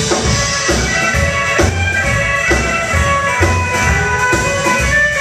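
Live band playing an instrumental passage: upright bass and drums keep a steady beat, about two a second, under long held lead notes.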